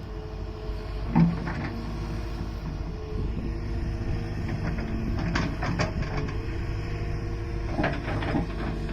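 Hydraulic excavator's diesel engine running steadily, with a few short knocks and scrapes from the working machine: about a second in, around five to six seconds, and around eight seconds.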